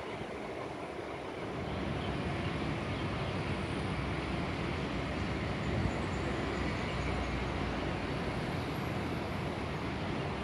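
Steady outdoor background noise from high above a city: a low rushing rumble that grows louder about a second and a half in, with no distinct events.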